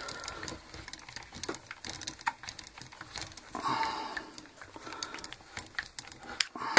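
Scattered small clicks and knocks from the plastic housing of a Mastercraft MPMB 750E rotary hammer being handled and turned over in the hands during reassembly, with a brief rustle about halfway through.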